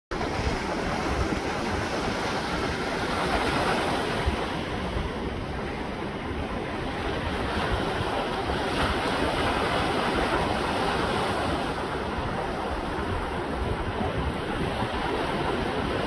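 Sea surf breaking and washing up a sandy beach: a steady rushing wash of waves, with wind buffeting the microphone as a low rumble underneath.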